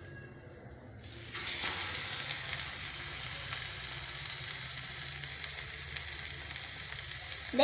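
Egg-dipped tikki patty sizzling as it fries in oil on a hot flat griddle. The sizzle starts about a second in and then holds steady.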